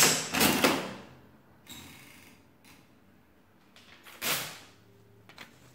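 Burroughs Class 1 adding machine's hand crank pulled to take the total, the mechanism clattering through its cycle in the first second. Fainter clicks follow, then a short, louder rasp about four seconds in.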